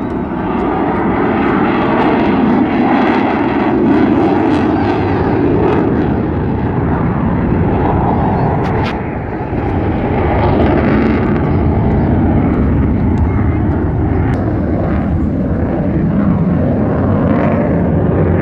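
Mirage fighter jet's engine running loud and continuous overhead during a flying display, dipping briefly about halfway before building up again.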